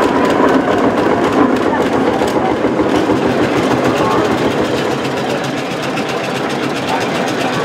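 Steam traction engines running along a road: the mechanical clatter and beat of the engines' motion and exhaust as one passes close by and another comes on.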